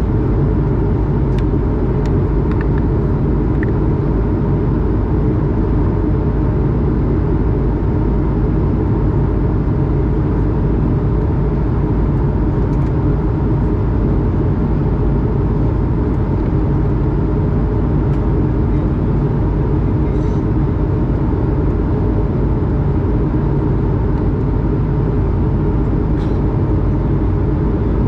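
Cabin noise of an Airbus A220 at cruise, heard from a window seat beside the wing and its Pratt & Whitney PW1500G geared turbofan. A steady, unchanging low rumble of engine and airflow, with a faint constant hum above it.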